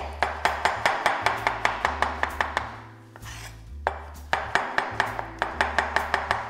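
Kitchen knife rough-chopping mushrooms on a cutting board: quick, regular knocks of the blade on the board, about four a second, with a pause of about a second midway before the chopping resumes.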